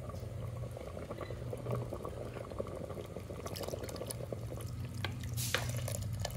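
Thin rice-flour slurry being poured into a simmering vegetable stew in a clay pot while a steel spoon stirs, with soft liquid sounds and light scattered clicks of the spoon against the pot over a low steady hum.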